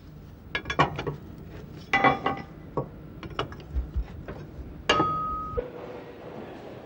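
Metal clinks and knocks from maintenance work in a tram depot, irregular and sharp, with one louder ringing metallic strike about five seconds in.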